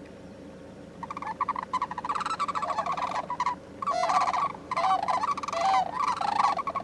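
A flock of sandhill cranes calling: rolling, trilled bugle calls from several birds overlapping in repeated bouts, starting about a second in.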